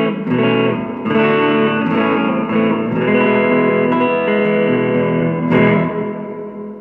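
Electric guitar played through a Yamaha THR10C modelling amp on its Mini amp model, which works normally. Chords are played and left to ring, with a fresh strum about five and a half seconds in that then fades away.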